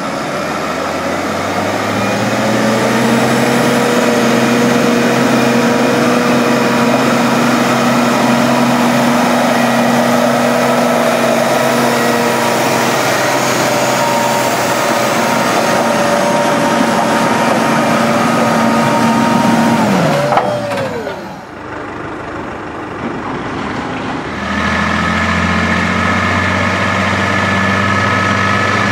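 International Harvester 1086 tractor's diesel engine running hard at steady high revs while pulling a sled, then its revs falling away about twenty seconds in as the pull ends. After a short lull, another tractor engine runs steadily at low revs.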